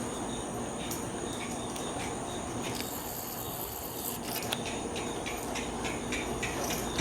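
A horse moving on arena footing: soft scuffing and rubbing with scattered light hoof clicks, which come more often after about four seconds. A steady high insect-like chirr runs underneath.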